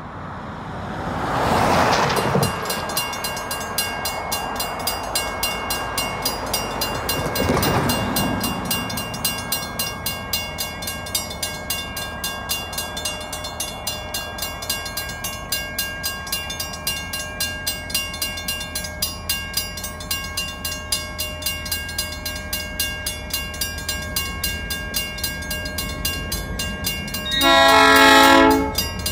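Railroad crossing bell ringing steadily at about two strokes a second as the crossing activates and the gates come down, after two road vehicles pass by. Near the end an approaching train sounds its horn once, a loud blast of about a second.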